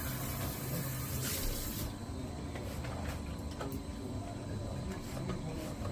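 Running water from a foot-washing tap or shower hissing, then shut off abruptly about two seconds in, leaving a low steady room hum and a few faint clicks.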